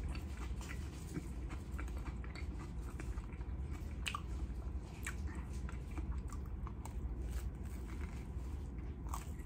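Close-miked chewing of a toasted everything bagel with lox and cream cheese, with scattered sharp crunches and another bite near the end, over a steady low hum.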